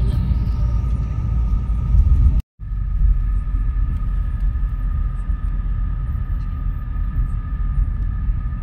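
A steady, loud low rumble with two faint steady high tones above it. It cuts out completely for a moment about two and a half seconds in, then resumes unchanged.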